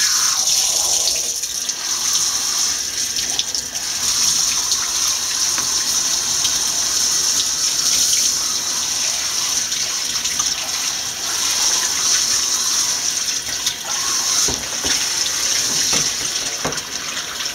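Handheld shower sprayer running steadily, its water spraying onto a wet cat's coat and into a bathtub: an even, unbroken hiss.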